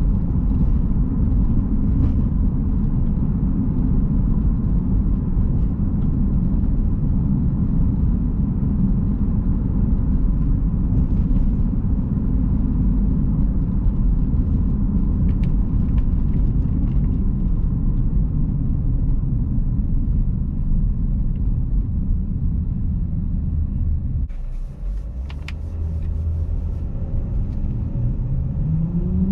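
Steady low rumble of a 2011 Jeep Grand Cherokee V6 being driven, heard from inside the cabin. About 24 seconds in it eases off briefly with a few clicks, then near the end the engine note rises as it accelerates.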